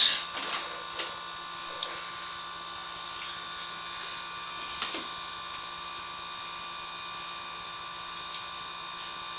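Steady electrical hum and hiss from sewer pipe inspection camera equipment, with a few faint clicks.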